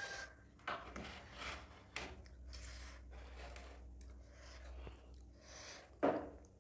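Eating by hand: chewing and mouth sounds, with fingers working dhido and curry on steel plates. Short, irregular noisy bursts and a few light clicks, the loudest about six seconds in.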